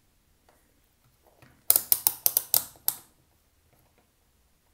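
A handheld digital multimeter's rotary selector switch being turned, a quick run of about seven sharp clicks lasting about a second, as it is set for a continuity check.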